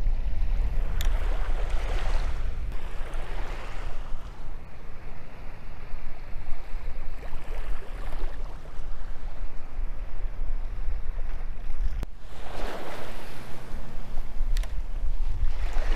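Small waves lapping and washing onto a sandy shore, swelling up about a second in and again near the end, over a steady low wind rumble on the microphone. Two short clicks, one early and one near the end.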